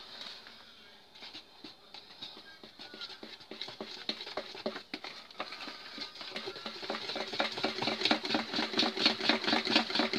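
Wire whisk beating thin cake batter in a plastic bowl: quick, rhythmic wet strokes that grow steadily louder.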